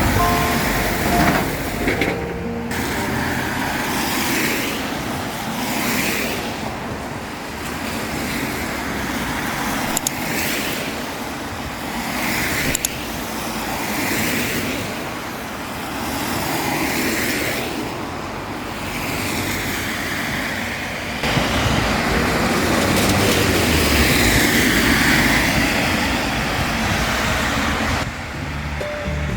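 Road traffic: cars passing one after another on a wet road, their tyre hiss swelling and fading every few seconds over a steady traffic rumble.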